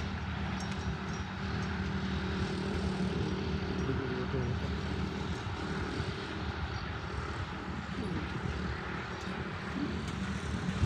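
A steady, low engine-like drone that does not change.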